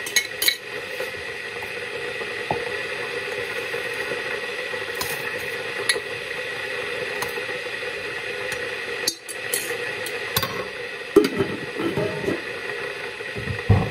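Kitchen clatter: clinks and knocks of dishes and cutlery over a steady hissing background. The hiss dips briefly about two-thirds of the way in, and heavier knocks follow near the end.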